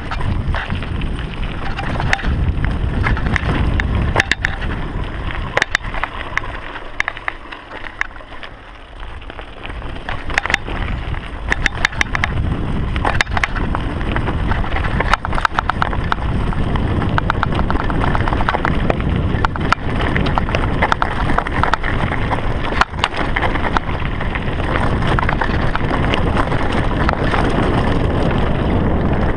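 Mountain bike ridden fast down a dirt woodland trail: a steady rumble of tyres and wind on the microphone, with frequent sharp rattles and knocks from the bike over bumps. It dips quieter for a couple of seconds about seven seconds in, then picks up again.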